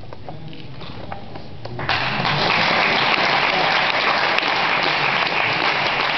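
Audience applauding, breaking out suddenly about two seconds in and holding steady after that.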